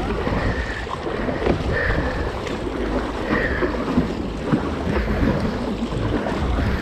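Wind buffeting the microphone over the splash and slosh of double-bladed paddles stroking the sea beside a tandem sit-on-top kayak, with short splashes every second or so.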